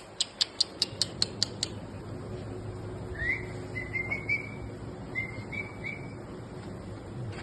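Small birds chirping: a quick run of about eight sharp, high chirps in the first couple of seconds, then a handful of short rising whistled notes.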